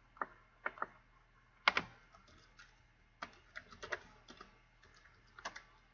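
Typing on a computer keyboard: irregular, separate key clicks, with one louder click a little under two seconds in.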